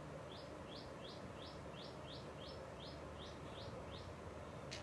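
A bird calling faintly: a run of about eleven short, high chirps, evenly spaced at roughly three a second, over a steady low background hum.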